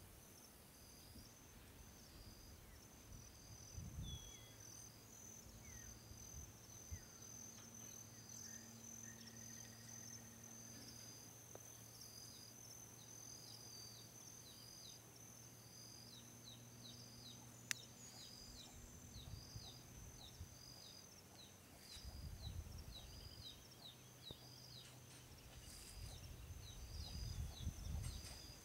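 Insects chirping in a quiet rural field: a steady high trill with a second chirp repeating about once a second, and short falling chirps joining in about halfway. A faint low hum runs through the middle, and low rumbles come near the end.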